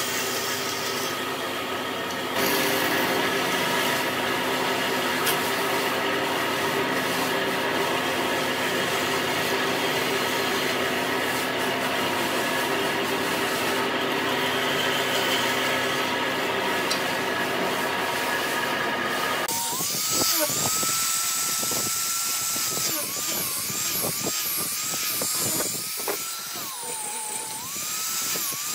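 Band saw running and cutting through a block of hardwood: a steady motor hum with the rasp of the blade. About two-thirds of the way through it changes to an angle grinder with a sanding pad, a high whine that dips and recovers each time the pad is pressed onto the wood.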